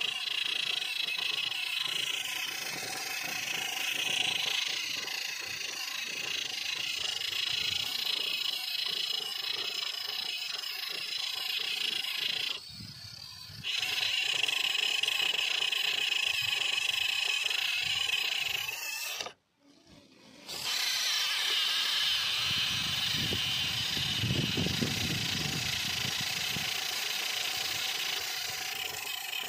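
Small electric motors and gearboxes of toy tractors whining steadily while they strain against each other in a tug-of-war. The sound cuts out briefly twice, once about thirteen seconds in and again for about a second near twenty seconds, and a lower rumble joins it afterwards.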